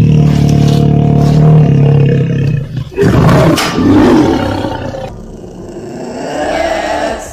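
A big cat roaring. A long, steady, low call runs for about three seconds, then breaks into a rougher, noisier roar that fades away.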